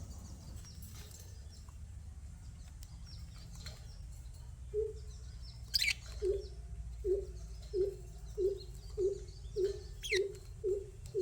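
Small pet parrots twittering softly, with two sharp, falling chirps about six and ten seconds in. From about five seconds in, a regular run of short, low notes repeats roughly twice a second over a low steady hum.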